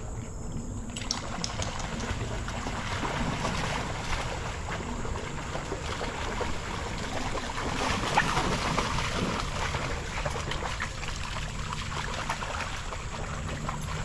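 Dogs wading and splashing through a shallow creek over the trickle of the flowing stream, the splashing loudest about eight seconds in as they run through the water together.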